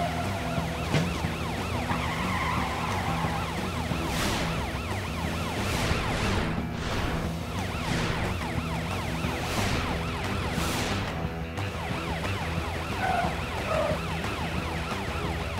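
Police car siren in a fast up-and-down yelp, over background music, with several short whooshes around the middle.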